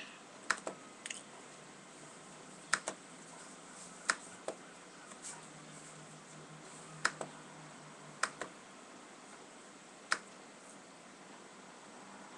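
Scattered clicks of a computer mouse, about a dozen, irregularly spaced and some in quick pairs like double-clicks, over a faint low hum.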